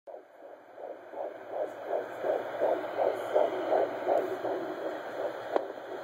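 Fetal heartbeat at 13 weeks, picked up by a handheld pocket fetal Doppler and played through its speaker as a fast rhythmic whooshing pulse, about three beats a second. It is faint at first and comes in clearly about a second in.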